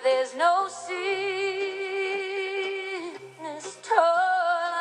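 Bluegrass music playing on a radio: a woman singing long held notes with vibrato.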